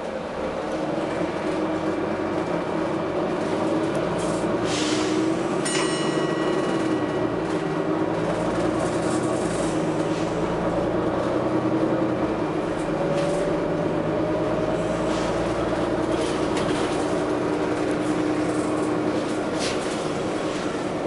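Volvo B9TL double-decker bus running, its engine and drivetrain drone carrying tones that slowly rise and fall in pitch, broken by short hisses of compressed air about four to six seconds in and again near the end.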